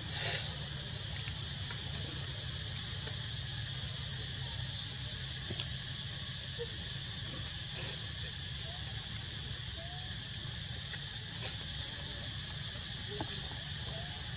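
Insects droning steadily at one high pitch over a low steady rumble, with a few faint short squeaks scattered through.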